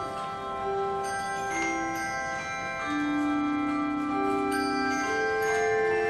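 A handbell choir ringing a slow hymn arrangement: new notes struck every half-second or so, each bell ringing on and overlapping the next so that the tones blend into sustained chords.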